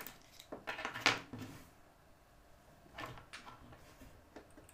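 Handling noise from hands working insulated wires against a small slide switch: irregular rustling and light scraping in a cluster over the first two seconds, loudest just after one second, then a shorter cluster about three seconds in and a small click near the end.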